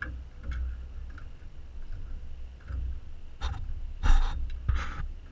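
A man breathing hard with effort, with a few short, forceful exhales near the end, over a low rumble of hands and tools working close to the microphone, as he cranks a hose clamp tight.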